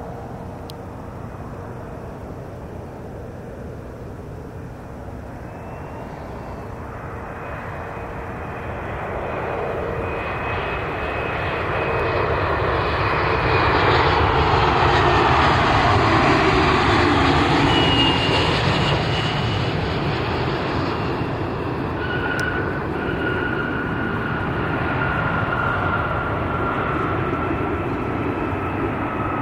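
Delta Connection CRJ-900 regional jet on final approach, its two rear-mounted GE CF34 turbofans whining over a broad rumble. The sound grows steadily louder, peaks about halfway through as the jet passes close, then holds as a steady whine as it comes down to the runway.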